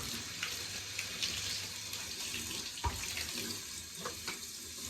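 Running water rinsing a shower head and its hose, washing off loosened mould, with a few light knocks, the clearest about three seconds in.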